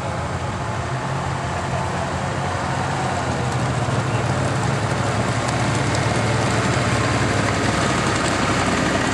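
Engine of a Tucker Sno-Cat running steadily as the tracked snow vehicle drives closer, growing gradually louder.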